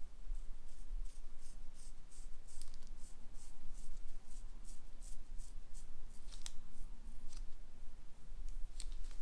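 Small barber's scissors snipping quickly, about three snips a second, trimming hair around the ear, stopping about six seconds in, followed by a couple of single clicks.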